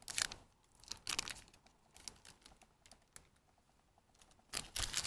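Butter wrapper crinkling and tearing as a piece of butter is unwrapped by hand, in short scattered crackles with a louder flurry near the end.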